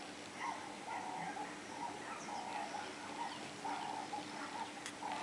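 Repeated animal calls in the background: a short call roughly every half second, with faint higher chirps between them.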